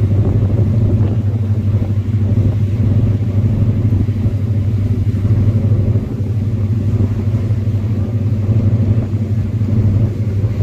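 Vehicle engine running steadily with a low, even drone.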